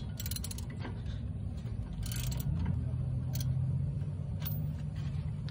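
Hand ratchet clicking in several short bursts, then single clicks, as it loosens a brake caliper bracket bolt. A steady low hum runs underneath.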